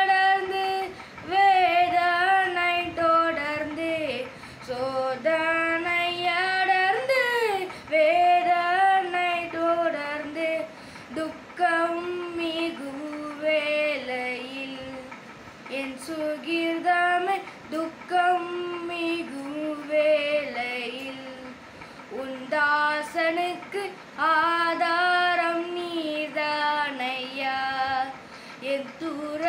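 A boy singing a Tamil Christian song solo and unaccompanied, in phrases a few seconds long with short breaks for breath between them.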